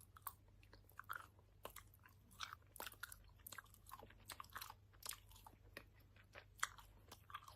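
A person eating with loud open-mouth lip-smacking: quick, irregular wet mouth clicks and smacks, several a second, with chewing sounds. A faint steady low hum runs underneath.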